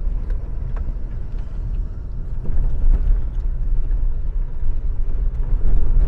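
Car driving up a mountain road: a steady low rumble of engine and tyres, getting a little louder about two seconds in, with a few faint knocks.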